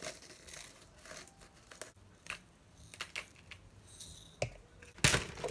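Quiet kitchen handling sounds: scattered light clicks and rustles as ground black pepper is shaken from a shaker jar, with one louder, sharp noise near the end.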